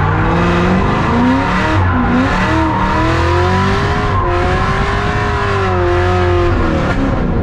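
Cadillac CTS-V's LS2 V8 running hard through a sustained drift, with the rear tyres squealing in a long, wavering squeal over a steady engine rumble.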